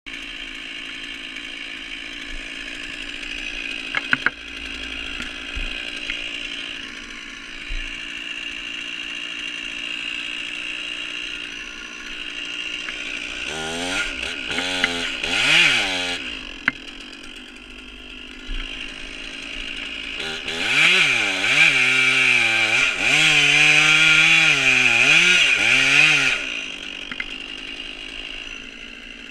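Stihl MS 461 two-stroke chainsaw with a 32-inch bar, running at idle and twice revving up to high throttle: briefly about halfway through, then for about six seconds near the end, with the pitch wavering under load before it drops back to idle.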